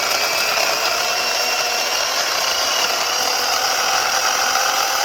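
Portland 14-inch corded electric chainsaw cutting through a log about 6.5 inches thick, its electric motor giving a steady whine over the rasp of the chain in the wood.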